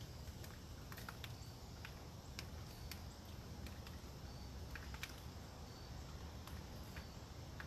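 Quiet storm-soaked woodland ambience: a steady low wind rumble, with scattered irregular ticks of water drips falling through the leaves and a few faint short high chirps.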